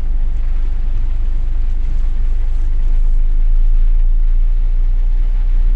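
Scania S500's V8 diesel engine pulling the truck slowly at low revs, heard inside the cab as a steady deep rumble that grows a little stronger about halfway through.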